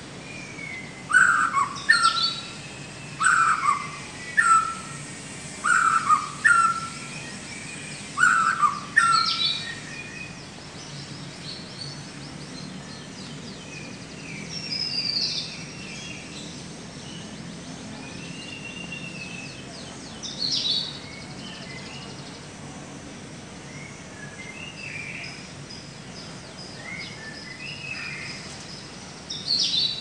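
White-rumped shama giving an unusual repeated call: a note sweeping down and dropping into a short lower one, six times in quick succession over the first nine seconds or so. After that come scattered softer, higher and more varied whistled phrases.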